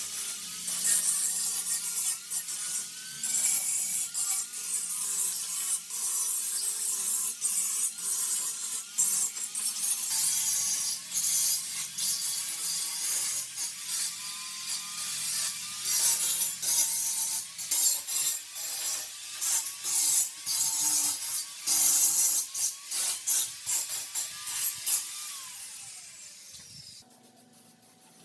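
Irregular scraping and rubbing strokes of hand-tool work on a workpiece, with a strong hiss, fading out near the end.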